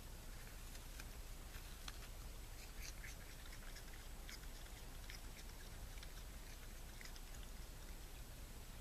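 Raccoon chewing a piece of apple: faint, irregular crunching clicks over a steady background hiss.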